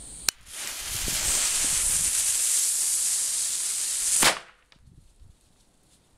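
Weco China cracker (small firecracker): a click, then its lit fuse hisses for about four seconds before the cracker goes off with one sharp bang.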